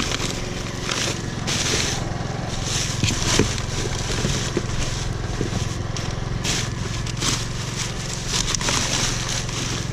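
Irregular crunching and crackling of scrap being handled, over the steady low hum of an idling engine.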